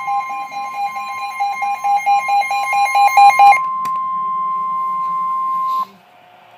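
NOAA Weather Radio warning alarm tone, a steady 1050 Hz tone announcing a severe thunderstorm warning, which cuts off sharply near the end. For the first three and a half seconds a second, rapidly pulsing beep sounds over it, followed by a single click.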